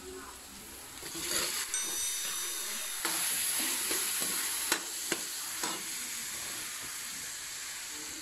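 Garlic and onions sizzling in hot oil in a steel wok as they are stirred with a metal spatula, with a few sharp clicks of the spatula against the pan. The sizzle grows louder about a second in and again around three seconds in.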